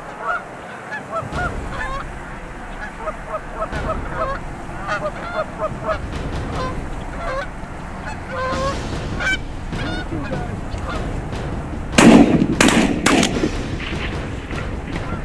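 Canada geese honking and clucking in quick short notes as they come in over the decoys. About twelve seconds in, three loud shotgun shots follow in quick succession, within about a second.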